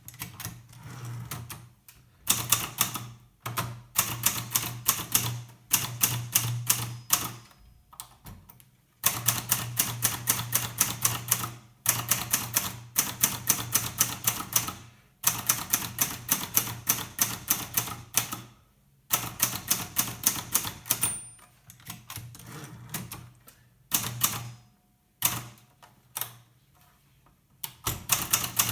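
Hermes Baby portable manual typewriter being typed on: rapid runs of sharp key strikes, several a second, in bursts of a few seconds broken by short pauses.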